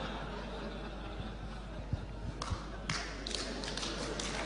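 Audience in a hall reacting to a joke with faint laughter and murmuring, with a few knocks and taps about two and a half to three seconds in and a patter of short sounds near the end.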